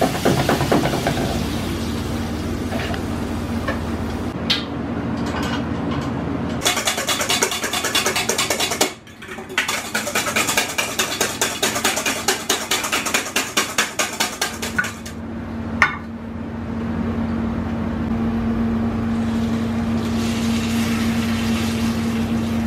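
Eggs being whisked fast in a stainless-steel bowl: a quick rhythmic clatter of the whisk against the metal, starting about seven seconds in and lasting some eight seconds with a short break. Under it runs the steady low roar of commercial gas burners under the woks, and a few sharp knocks come just before the whisking.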